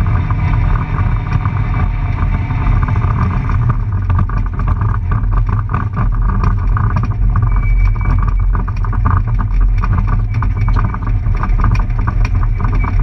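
Peugeot 106 Group A rally car heard from inside its stripped cabin: engine, drivetrain and tyre noise with constant rattling of the shell. About four seconds in, the high hiss falls away and the car runs on more slowly.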